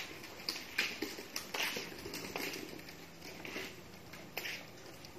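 Feet scuffing on rough concrete in irregular strokes, about one or two a second, from a toddler pushing a plastic ride-on toy car along.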